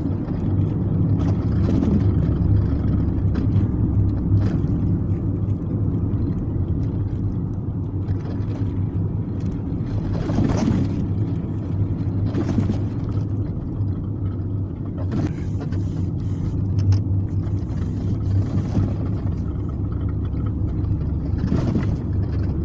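Steady low rumble of a car's engine and tyres heard from inside the cabin while driving, with a couple of brief swishes about ten seconds in and near the end.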